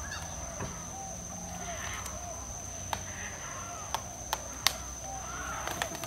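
Many birds calling in a walk-in aviary: short, overlapping chirps, with a few sharp clacks and a steady high-pitched whine underneath.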